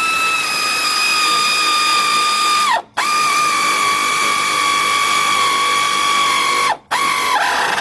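Power ratchet running in the rear brake caliper slide-pin bolts: a steady whine that cuts out about three seconds in and again near seven seconds, then a brief third burst, the pitch sagging at the end of each run as the bolt seats.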